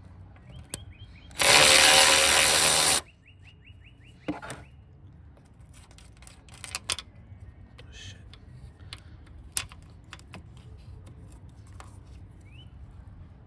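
A power tool, working on the strut's fasteners, runs in one loud burst of about a second and a half. Scattered metal clicks and knocks from tool handling follow.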